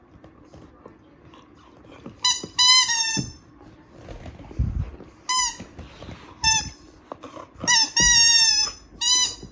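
Squeaker inside a plush monkey dog toy squeaking in short, high-pitched bursts as a dog bites and tugs on it, about ten squeaks in clusters. A few dull thumps come from the toy being handled.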